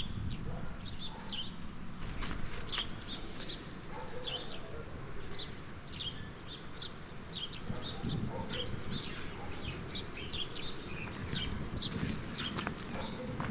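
Small birds chirping, with many short high chirps scattered irregularly throughout, over a steady low rumble.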